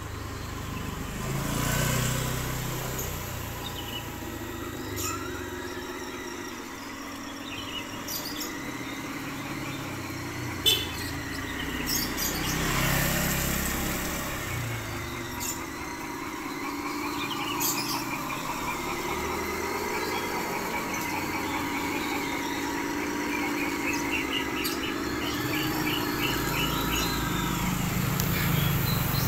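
Homemade 1/10-scale RC truck driving over rough concrete, its drive sound rising and falling in pitch as it speeds up and slows. A sharp knock comes about a third of the way through.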